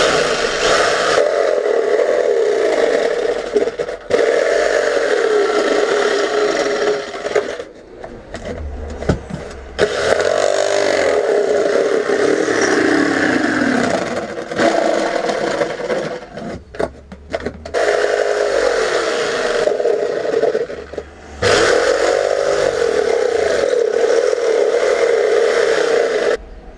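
Electric jigsaw cutting through a thin wood panel in four long runs with short pauses between them, its motor pitch wavering and dipping as the blade bites.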